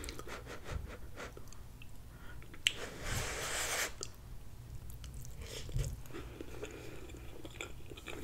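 Close-miked eating of stewed cabbage and sausage: a forkful taken in with a brief rush of sound about three seconds in, then soft, quiet chewing and mouth smacks.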